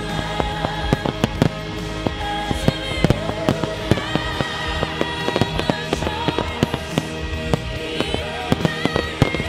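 Aerial fireworks shells bursting in a rapid, irregular string of sharp bangs, over music with a held, sustained melody playing along.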